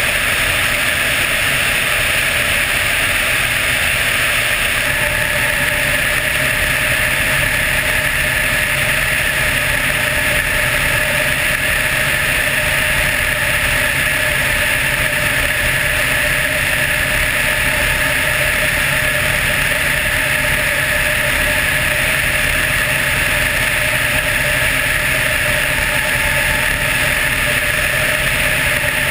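Helicopter in flight: steady turbine and rotor noise.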